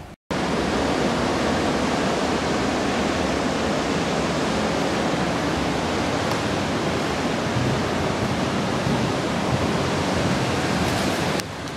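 Loud, steady rushing noise with no clear pitch or rhythm, starting abruptly just after the beginning and dropping away near the end.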